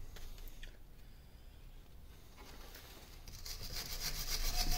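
Rapid back-and-forth rubbing on the grimy cast-iron housing of a lathe's quick-change gearbox, building up about halfway in and getting louder, after a few light clicks of handling.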